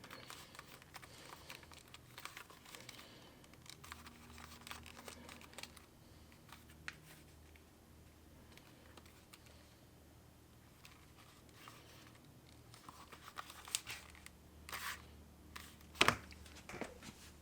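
Leather being handled: soft rustling and crinkling with scattered small taps and clicks, and a sharper knock near the end.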